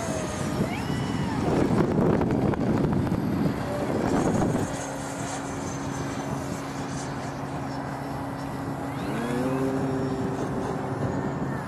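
Twin electric ducted fans of an E-flite Su-30 model jet in flight: a loud rushing jet sound for the first few seconds, then a quieter steady hum, with the pitch rising briefly near the end.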